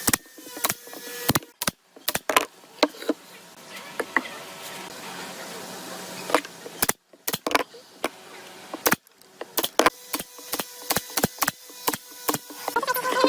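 Irregular knocks and taps of tools working wood, with faint hiss and a thin hum between the strikes.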